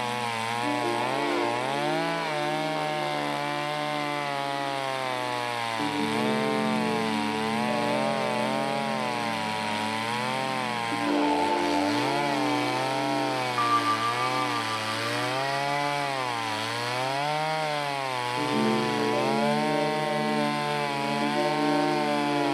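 Stihl 024 two-stroke chainsaw ripping a log lengthwise in a chainsaw mill. The engine pitch keeps sagging and climbing as the chain bogs into the cut and recovers.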